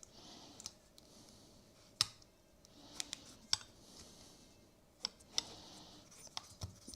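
Scattered light clicks and taps of small hard parts being handled, about eight at uneven intervals, with faint rustling between them, as an RC plane engine's exhaust header and its bolts are test-fitted.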